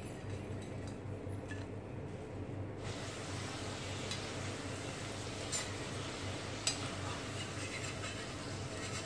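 Hot oil sizzling around potato strips deep-frying into French fries in a wok, the sizzle coming in about three seconds in. A steel slotted skimmer clinks against the pan a few times.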